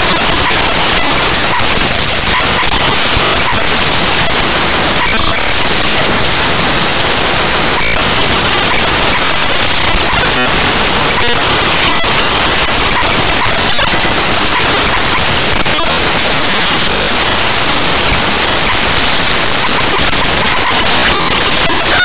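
Raw bytes of the Cinebench 2024.1.0 executable played back as 8-bit mono audio at 32 kHz: a loud, dense hiss of harsh static, like white noise, with a few brief flickers.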